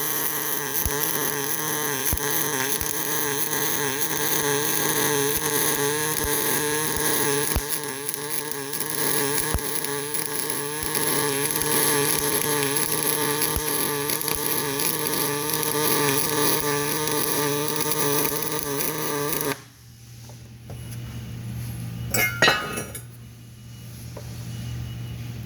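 Welding arc running steadily for about twenty seconds, then stopping abruptly; a few seconds later, a single sharp metal clink.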